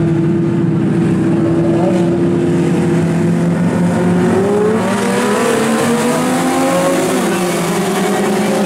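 A pack of dirt-track mini stock race cars running at speed, several engines droning together. From about four or five seconds in their notes rise and the sound grows fuller as the cars come closer.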